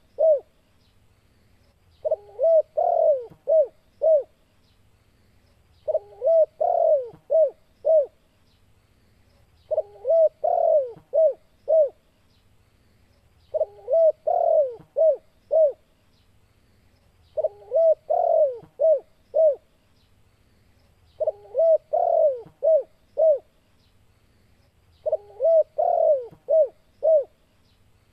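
Spotted dove (tekukur) calling: a phrase of about five coos, the last notes short and clipped, repeated at even intervals about every four seconds. It is the call used as a lure to draw in and provoke other spotted doves.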